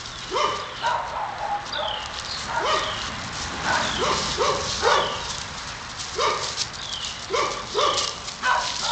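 A dog barking repeatedly, about a dozen short barks at an uneven pace.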